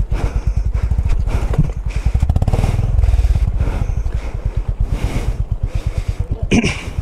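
Single-cylinder motorcycle engine running at low revs over a rocky off-road trail, its firing strokes making a steady throb that swells and eases as the throttle is worked. A short, sharp noise comes near the end.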